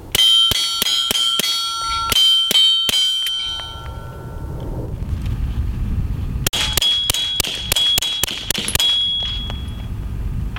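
Suppressed 9mm handgun fired through a Griffin Armament Revolution 9 suppressor in its short K configuration, in two rapid strings of about ten shots each, the second starting about six and a half seconds in. Hit steel targets ring out over each string with a sustained metallic clang.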